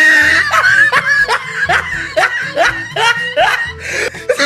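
Laughter: a run of about ten quick, rising, high-pitched 'ha' sounds, two to three a second, over background music with a steady bass line.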